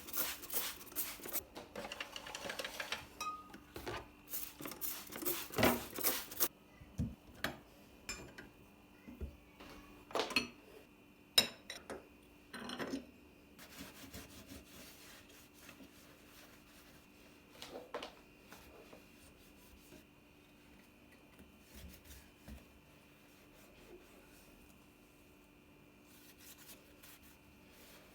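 Kitchen handling sounds: quick rubbing or scraping strokes for the first six seconds or so, then scattered clicks and knocks of dishes and utensils. A faint steady hum runs underneath.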